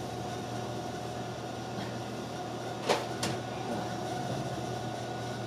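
Steady running noise of a city bus heard from inside the cabin: a constant low hum with a faint steady whine above it. Two sharp clicks come close together about three seconds in.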